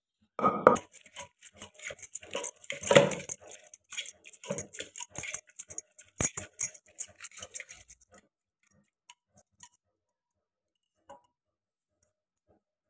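Steel kitchen utensils and pot clattering as vegetables are handled: a dense run of clicks, clinks and knocks for about eight seconds, with a few louder thuds, then only scattered ticks.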